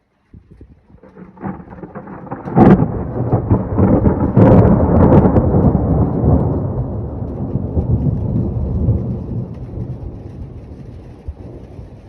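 A thunderclap during a rainstorm: a low rumble builds, breaks into sharp cracks about two and a half and four and a half seconds in, then rolls on and slowly fades.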